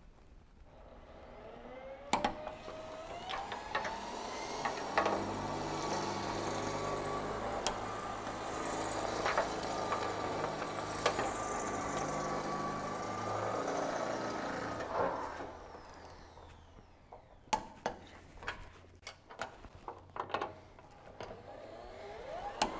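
Power drill spinning up about two seconds in, running steadily as it bores into the truck's steel frame, then winding down after about fifteen seconds. Near the end comes a quick run of sharp clicks from a click-type torque wrench being ratcheted on the frame bolts.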